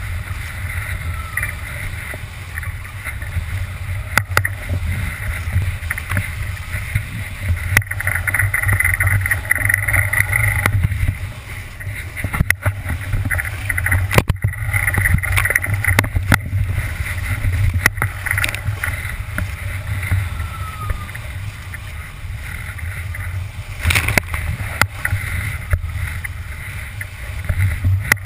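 Wind buffeting a small camera microphone while a small craft skims fast over choppy sea, water rushing and splashing past, with several sharp knocks at irregular intervals as it slaps through the chop.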